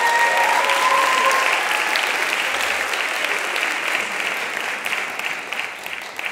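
Audience applauding and cheering, with a few high shouts in the first second or two, the applause slowly dying down.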